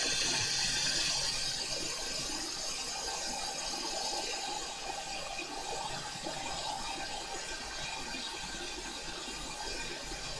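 Steady hiss of hot air blowing from a rework heater used on a circuit board, easing slightly in level.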